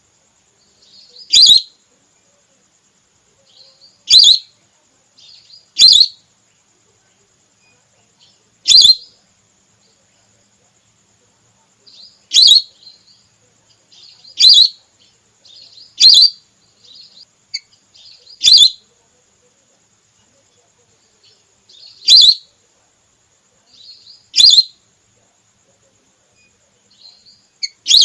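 Lesser whistling duck lure call, female: short, sharp, high calls repeated about every two to three seconds, about ten in all, each with a soft lead-in note.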